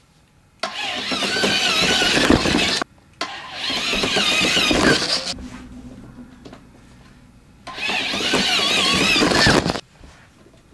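A motor running in three bursts of about two seconds each, each starting and stopping abruptly, with a wavering whine.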